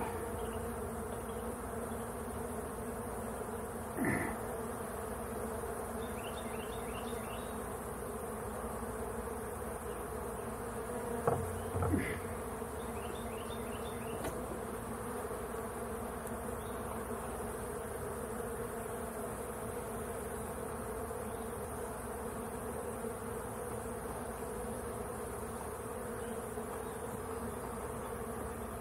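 Honeybees buzzing in a steady hum around an opened hive. A few light knocks come about four seconds in and again around eleven to twelve seconds in.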